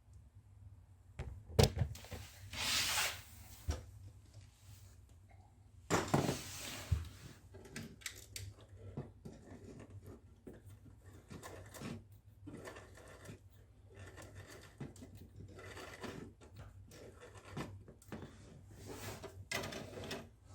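Handling noises from a small rubber-band-powered model car with 3D-printed plastic parts. A sharp knock and a rustle come a couple of seconds in, with another knock and rustle about six seconds in, then a long run of light, irregular clicks and scrapes.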